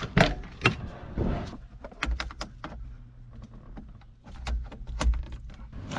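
Toyota pickup truck's door latch clicking and the door being opened, then a string of clicks, knocks and a couple of low thumps in the cab as a 12-volt plug is pushed into the dashboard cigarette lighter socket.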